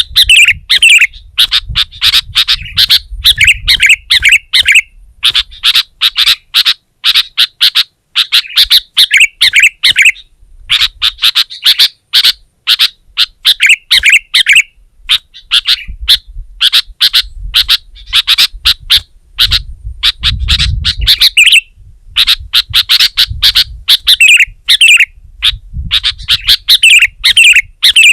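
Sooty-headed bulbul (kutilang) singing vigorously: loud runs of fast, bubbly chirps that go on for several seconds at a time, with brief pauses between runs.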